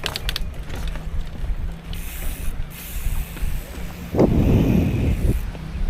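Car engine running with a steady low hum, a few clicks at the start, and a loud rough rumbling burst lasting about a second, some four seconds in.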